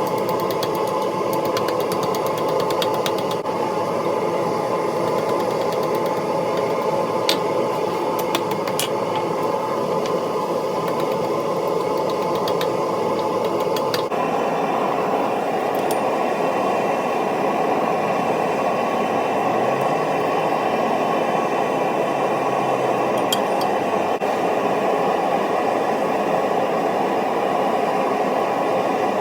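Steady, loud machine noise with no rhythm and a few faint clicks; its tone changes suddenly about halfway through.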